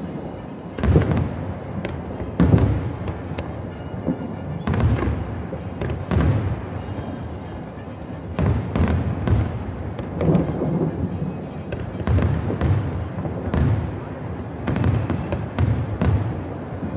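Aerial fireworks shells bursting in a steady series of booms and bangs, a second or two apart, each trailing off in a low rumbling echo; the loudest come about a second in and near two and a half seconds.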